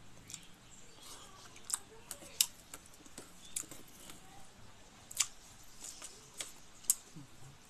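Eating by hand from a plate: several sharp, separate crunches and clicks of chewing and of fingers picking at food.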